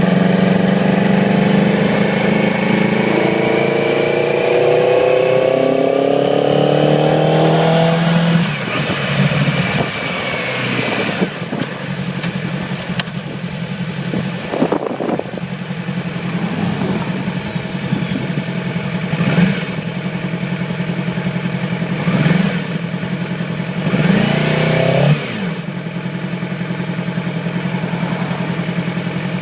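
2008 Yamaha YZF-R6 inline-four engine misfiring on one cylinder, a fault traced to a failed ignition coil. It is held at raised revs that creep slowly higher, drops back to idle about eight seconds in, then idles with four short throttle blips.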